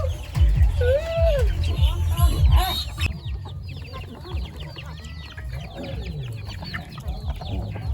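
Chickens clucking and calling, with many short high calls packed together from about three seconds in. Low thumping runs under the first three seconds.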